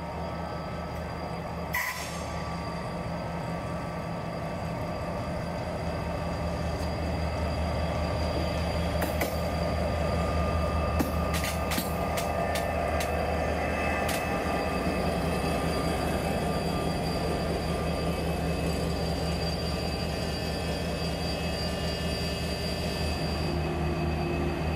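Renfe class 334 diesel locomotive's Caterpillar V12 engine running steadily as the loco moves slowly past, growing louder as it nears. A few sharp clicks from the wheels over the track come about nine, twelve and fourteen seconds in.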